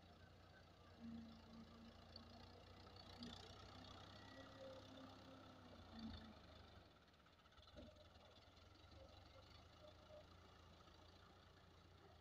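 Fiat 640 tractor's diesel engine running steadily, faint, as the tractor pushes soil with its front blade.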